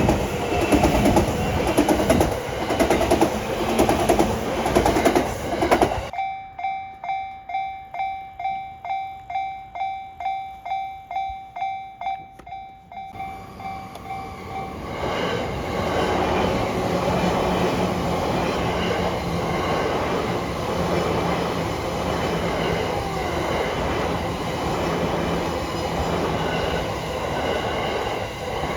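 A train passing with rhythmic wheel clatter. After a sudden cut, a Japanese railroad crossing's warning bell rings on its own, about two dings a second. Then another train runs by over the crossing with a steady hum.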